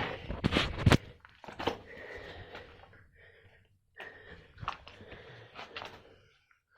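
Irregular knocks, scuffs and rustles of a hand-held phone being handled and carried, the sharpest knocks about a second in.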